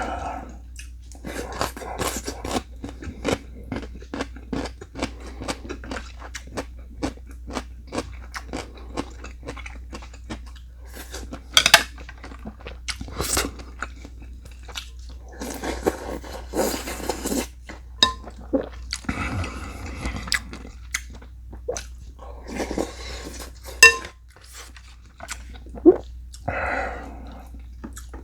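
Close-miked chewing and crunching of food, with many short sharp clicks and a few longer noisy stretches of a second or two.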